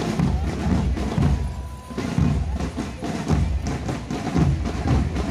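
Music with heavy drumming: deep bass-drum thumps repeating throughout.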